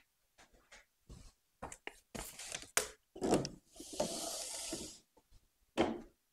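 Metal baking trays handled on a stone countertop: a run of short knocks and clunks, a scraping slide lasting about a second just past the middle, and one more knock near the end.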